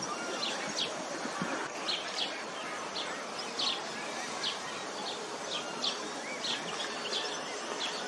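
Small birds chirping in short high notes, about once or twice a second, over a steady outdoor hiss.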